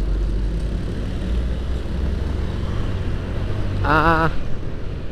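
Steady low rumble of motorcycle and street traffic in a slow-moving jam. About four seconds in comes a short wavering tone.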